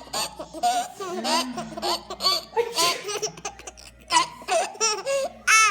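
A young child laughing in repeated short, high-pitched bursts at a fake sneeze, with a loud squeal near the end.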